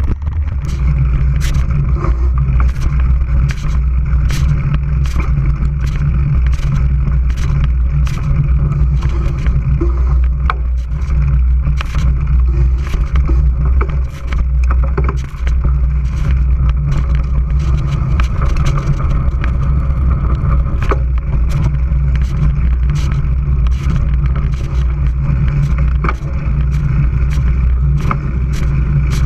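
Mountain bike rolling fast over a dirt forest trail, heard through a bike-mounted camera: a steady low rumble of tyre and ride vibration with frequent sharp knocks and rattles as the bike jolts over bumps.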